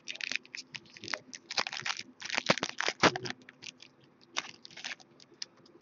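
Foil wrapper of a hockey card pack crinkling and crackling as it is torn open and the cards are handled. A dense run of small crackles lasts about three seconds, then they come more sparsely.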